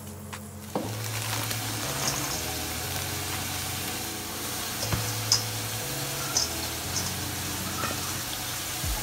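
Shredded chicken sizzling in a hot frying pan as soy sauce hits it: a steady hiss that starts suddenly about a second in, with a few small crackles. Background music with a steady low bass line plays underneath.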